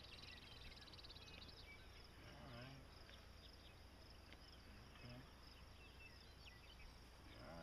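Near silence: faint outdoor ambience with a thin, high insect trill and a couple of brief distant voices.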